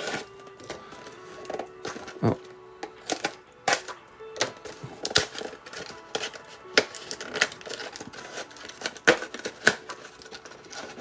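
Football trading cards being handled and flipped through by hand, with irregular sharp clicks and snaps of card edges and packaging. Faint background music plays underneath.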